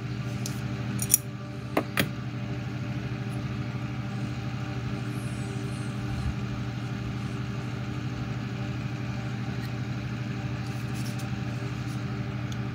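A steady low hum throughout, with three or four sharp clicks in the first two seconds as small metal hobby tools such as tweezers and scissors are handled and set down on the workbench.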